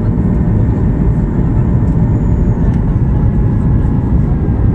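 Steady low rumble of a Ryanair Boeing 737's cabin on landing approach: engine and airflow noise heard from a window seat over the wing, with the flaps extended.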